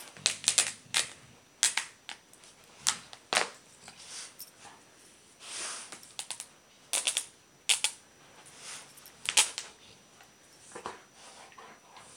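Two golden retrievers mouth-wrestling in play: sharp clicks and snaps of teeth and jaws coming together, in a quick run at first and then in scattered clusters. A short breathy noise comes about halfway through.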